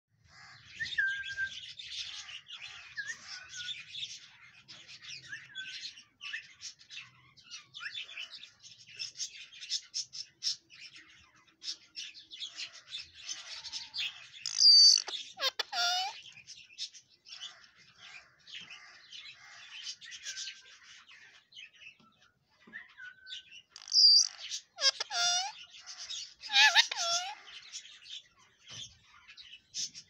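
Rose-ringed parakeet (Indian ringneck) chattering with quick chirps throughout, with a few louder calls about halfway through and again in the last few seconds.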